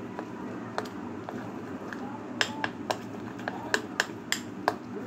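Spoon clinking against a glass bowl while stirring thick gram-flour batter: a string of sharp clicks, one near the start and a quick run of them in the second half, over a steady low hum.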